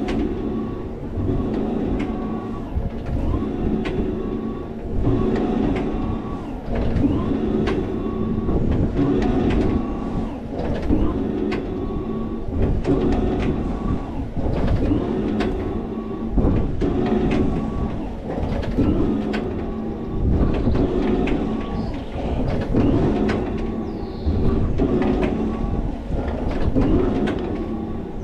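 Rocket-Roll flat ride in motion, heard from a seat on the car: a drive hum and whine that swells and fades in a steady rhythm about every two seconds as the car rocks, with rattles and clicks from the car and its arms.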